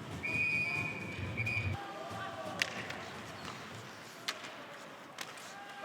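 Ice hockey rink sound: a whistle blown once, a steady high tone for about a second and a half, then three sharp clacks of stick and puck over a low crowd murmur.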